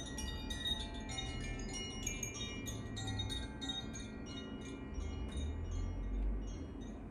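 Carillon chimes being played: many quick, irregular strikes, several a second, with high, bell-like tones ringing on and overlapping. A low rumble comes and goes underneath.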